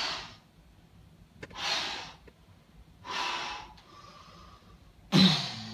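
A person takes three short, sharp, noisy breaths about a second and a half apart, then lets out a sudden loud cry near the end.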